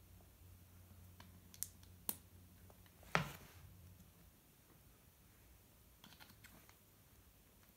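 Small plastic Lego pieces clicking as they are set down and nudged on a wooden tabletop. A few light clicks come in the first two seconds, a louder knock a little after three seconds, and a quick cluster of faint clicks around six seconds.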